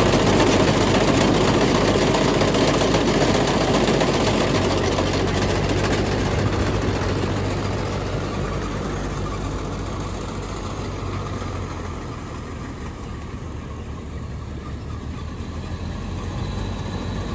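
Mahindra Arjun Novo 605 DI tractor's diesel engine and its tractor-mounted Gahir Nippy45 mini combine harvester running steadily while harvesting paddy. The sound gets gradually quieter through the middle and a little louder again near the end.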